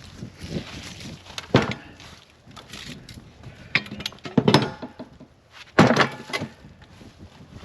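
Pieces of cut firewood being handled and dropped: three loud wooden thunks with a clatter after each, about a second and a half, four and a half and six seconds in, with rustling and footsteps between.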